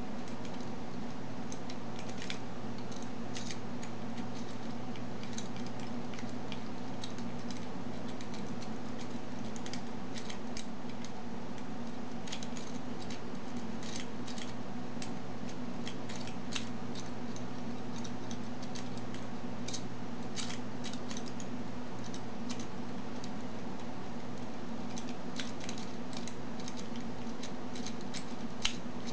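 Homemade stainless-steel rake pick raking the serrated pins of a dimple euro lock cylinder under light tension, giving many small irregular metallic clicks and ticks in clusters, with a sharper click near the end. A steady low hum runs underneath.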